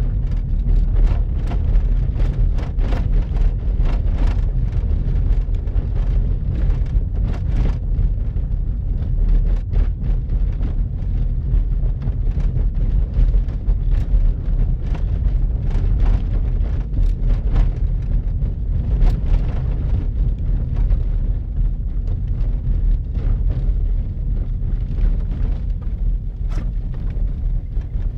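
Steady low rumble of a car driving on a snow-covered road, heard from inside the cabin, with frequent small crackles throughout.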